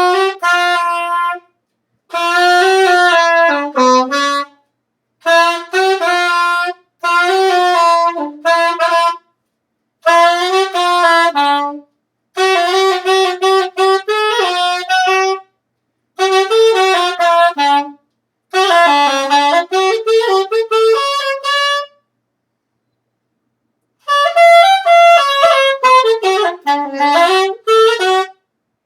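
A solo wind instrument playing a slow melody in short phrases, each one to four seconds long, with brief silent breaths between them and a longer pause about three-quarters of the way through.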